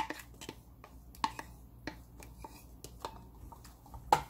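Scattered light clicks and taps of a cup and a wooden spoon against a glass mixing bowl as thick glutinous rice paste is poured in and stirring begins; the sharpest knock comes about four seconds in.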